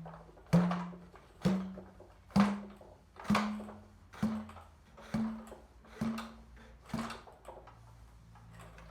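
Ramrod pounding a potato down a potato cannon's barrel: about eight strikes just under a second apart, each with a short low ringing tone from the tube, the last few weaker.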